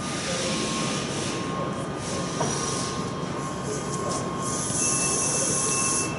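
Factory-hall machinery noise: a steady high whine, with a second, higher tone joining about halfway through, and about a second of loud high hissing near the end.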